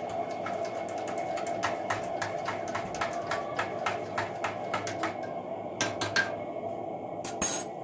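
Teaspoon clinking against the inside of a ceramic mug as instant coffee is stirred: a quick run of light ticks, about three a second, over a steady low hum. A louder ringing clink comes near the end.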